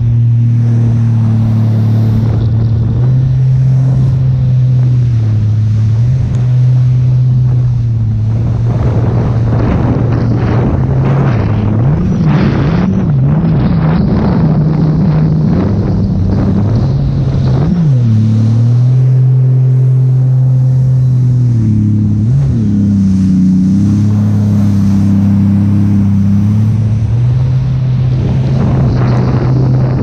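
Jet ski engine running under way on open water, its note mostly steady, dipping briefly and coming back up several times as the throttle is eased off and reopened. Water hiss and splashing go with it and swell at times.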